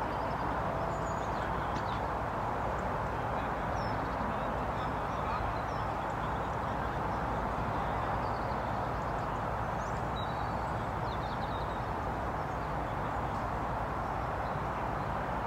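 Steady outdoor background noise with no clear single source, with a few faint, short high chirps scattered through it.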